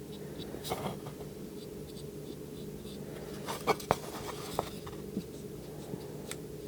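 Light scratching and a few small clicks and taps from handling a small paint brush and a plastic toy part, the sharpest two close together past the middle, over a steady low hum.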